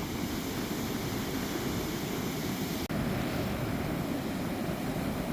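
Wind buffeting the microphone over the rush of surf: a steady low rumbling noise, which drops out for an instant about three seconds in.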